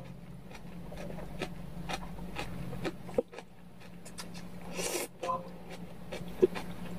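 Man eating kongguksu, cold soy-milk noodles: wet mouth clicks and chewing, with a longer slurp of noodles about five seconds in. A steady low hum runs underneath.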